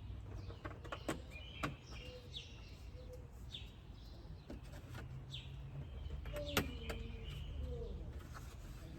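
A bird chirping over and over, short falling chirps about once a second, with a few sharp clicks, the loudest about two-thirds of the way through, over a steady low background rumble.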